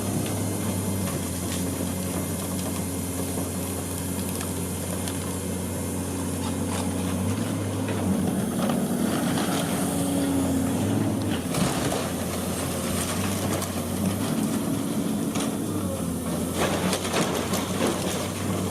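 Heavy diesel demolition machine running steadily, its engine note rising under load partway through, with crunching and clattering of breaking debris, heaviest near the middle and toward the end.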